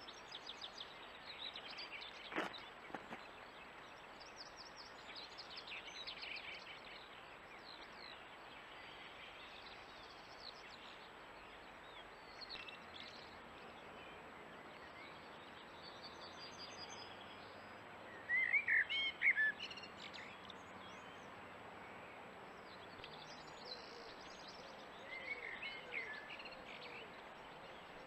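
Scattered bird calls and song phrases over a steady background hiss, the loudest a quick cluster of chirps about two-thirds of the way through and another group near the end. A single sharp click about two seconds in.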